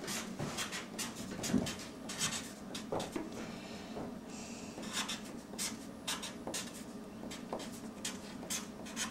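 A marker writing on paper: a quick run of short scratchy strokes as numbers and fractions are written out.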